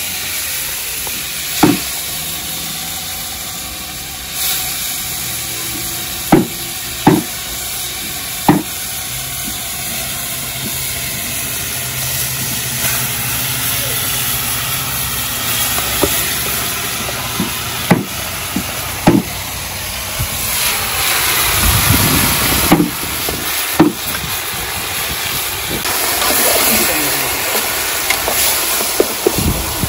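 Metal spoon clanking sharply against a large aluminium cooking pot, about ten scattered knocks, as seasoned meat is mixed and stirred in it, over a steady hiss.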